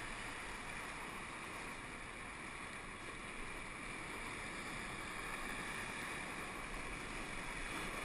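Steady rushing of whitewater rapids on the Arkansas River, running at about 2,200 cfs, around a paddled inflatable raft.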